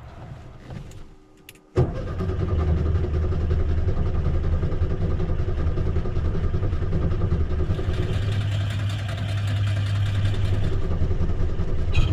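Volkswagen Beetle's air-cooled flat-four being cranked on the starter, kicking in suddenly about two seconds in and grinding on steadily for about ten seconds without the engine catching.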